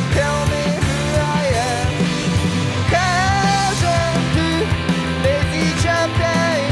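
Midwest-emo style rock band playing: electric guitars, bass and drums at a steady beat, with a sung vocal line over them.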